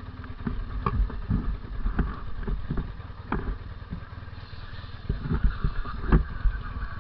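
Honda CB 400 II motorcycle running on the road, its loud exhaust rumbling unevenly with irregular thumps.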